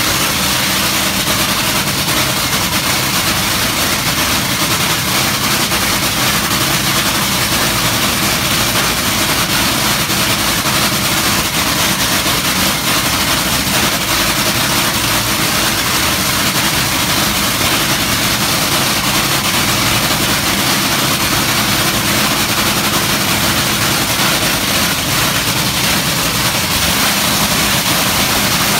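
Top Fuel dragster's supercharged nitromethane V8 idling steadily during a pit warm-up, loud and unchanging.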